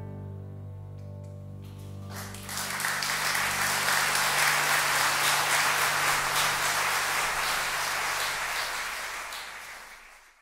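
The last notes of a song ring out and die away, then an audience applauds from about two seconds in, the clapping fading out at the very end.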